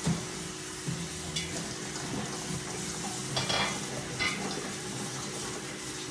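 Pot and utensils at a gas stove: a few clinks and knocks of metal over a steady hiss and a low hum.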